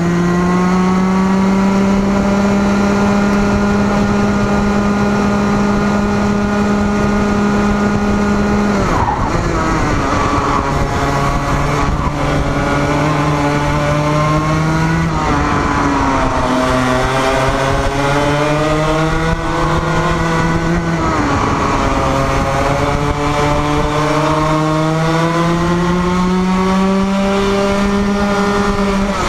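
Racing go-kart engine heard onboard at speed: the engine note climbs steadily for about nine seconds, drops sharply, then dips and climbs twice more as the kart slows for corners and accelerates out.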